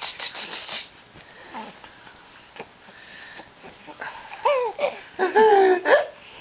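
A baby vocalising: a short high-pitched squeal with a rise and fall about four and a half seconds in, then a longer wavering squeal just after. A quick run of breathy puffs comes right at the start.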